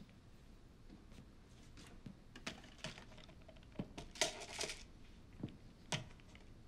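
Small items such as boxes and bottles being handled on pharmacy shelves: light, irregular clicks and taps, with a short rustle about four seconds in.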